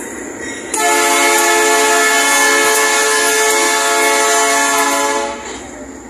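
Air horn of the train's GE AC44i diesel-electric locomotives sounding one long blast, starting about a second in and lasting about four and a half seconds, over the rumble of the passing wagons.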